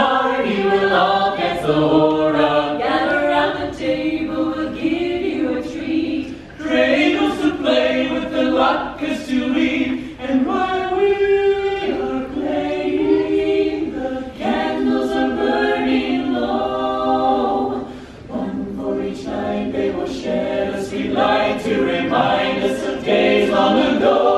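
Small mixed choir of men and women singing a holiday song a cappella in close harmony, with short pauses between phrases.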